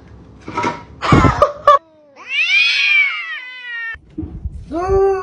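A few knocks and clatter about a second in, then a cat's long meow that rises and falls. From near the end comes a steady, drawn-out yowl of cats squaring off: a territorial caterwaul.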